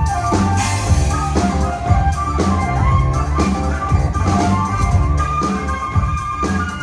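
Progressive rock music: a drum kit keeps a steady beat of about two strokes a second under a heavy low end and sustained melodic instrument lines.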